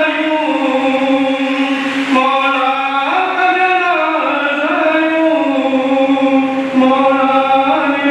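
Noha recitation: a male reciter chanting a Shia lament in long held notes that step up and down in pitch.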